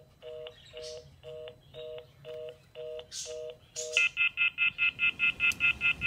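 Call-progress tones from a VTech cordless phone handset. A two-note low tone beeps about twice a second: the fast busy, or reorder, tone of a line left open without a call going through. About four seconds in it gives way to a louder, higher off-hook warning tone pulsing about five times a second, the signal that the phone is off the hook.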